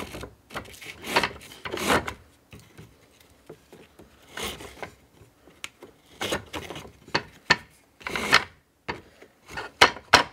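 Small Japanese wooden grooving plane (mizokiri) pushed across a block of old wood in about eight short strokes with uneven gaps, its blade shaving the wood. The blade cuts a little but still needs adjusting.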